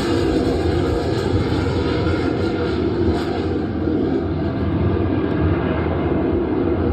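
VIZIO V-Series 5.1 soundbar and wireless subwoofer playing back at full volume: a loud, steady roar like aircraft engine noise, heavy in the bass.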